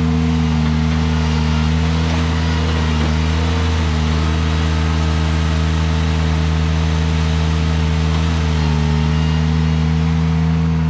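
Ventrac compact tractor's engine running steadily at a constant speed while hauling logs with its grapple bucket.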